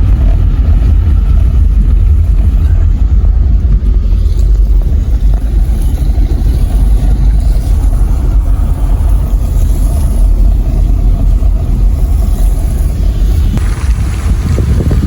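Steady loud rumble of a car driving, heard from inside: engine and road noise mixed with wind on the microphone.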